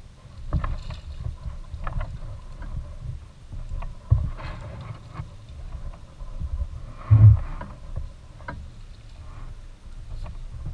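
Shallow lake water sloshing and splashing around a wader-clad angler's legs and hands and against a float tube, over a low rumble on the microphone. Short louder splashes and knocks come about half a second, four seconds and seven seconds in, the one near seven seconds the loudest.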